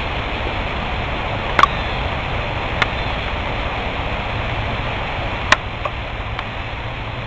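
Steady rushing outdoor background noise, with a few short sharp clicks; the sharpest comes about five and a half seconds in.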